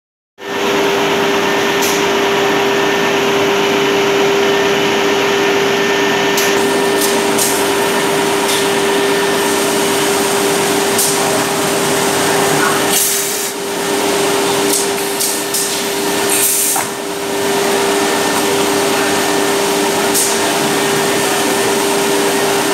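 CNC copy-shaping machine for chair legs running, its spindles giving a steady whine over a loud, even machine noise.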